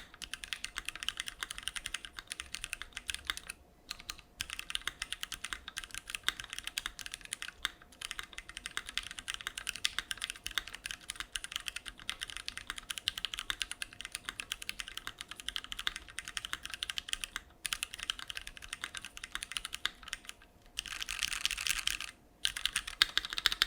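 Typing on a Keychron Q1 mechanical keyboard with tactile Gateron Phantom Brown switches, CRP keycaps and an aluminum plate: a steady run of fast keystrokes, broken by a few short pauses, with a denser, louder flurry of keys near the end.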